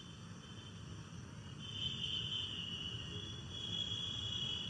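A faint, steady high-pitched buzz, growing louder about a second and a half in, over a low background hum.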